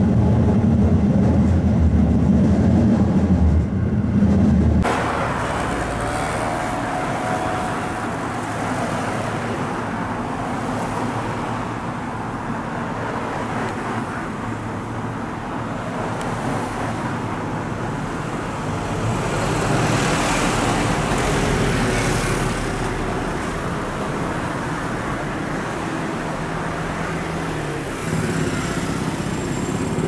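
A train's low running rumble heard from its cab, which cuts off abruptly about five seconds in. It gives way to steady road traffic noise of cars and trucks passing, with one vehicle passing louder a little past the middle.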